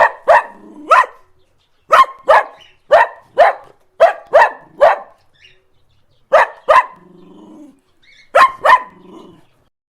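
A dog barking: about fourteen sharp barks in quick pairs and short runs, with short pauses between the groups.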